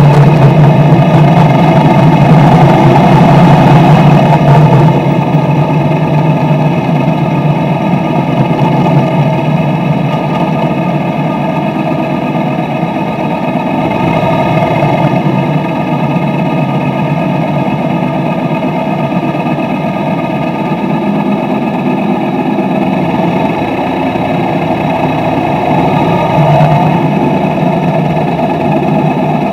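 Motorcycle engine running at low speed in slow city traffic, as picked up by the bike's dash cam, with road and traffic noise. It is a little louder for the first few seconds, then settles to a steady hum.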